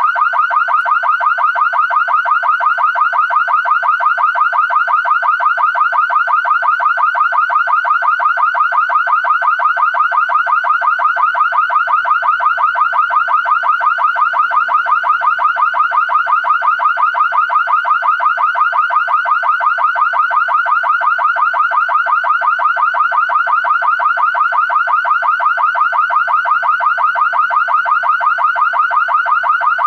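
Car alarm siren sounding a fast, steady warble: a short pitch sweep repeating several times a second without a break.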